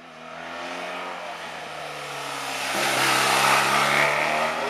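Rally motorcycle engine approaching and passing close, growing steadily louder. Its pitch falls as it slows into the bend, then rises as the rider opens the throttle out of it, loudest about three to four seconds in.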